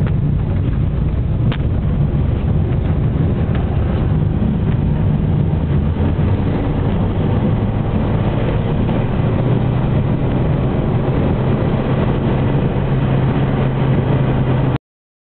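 Steady engine and road noise of a car being driven, heard from inside the car, with a low rumble throughout. It cuts off suddenly near the end.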